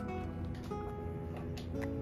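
Background music: a plucked acoustic guitar playing held notes.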